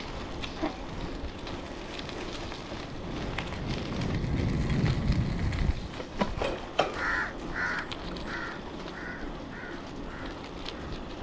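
A crow cawing about seven times in an even series, each caw fainter than the last. Under it runs a steady rush of wind and riding noise from the bicycle, with a few sharp clicks just before the calls begin.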